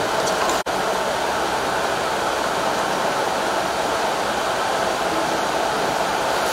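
Steady, loud hiss of background noise, like a fan or air conditioner, with a brief break a little under a second in.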